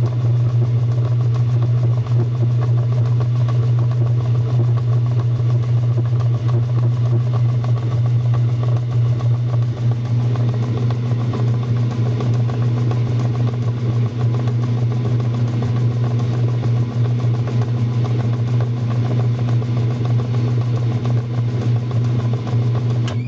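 Mabe 7 kg washing machine running, its motor giving a loud, steady hum.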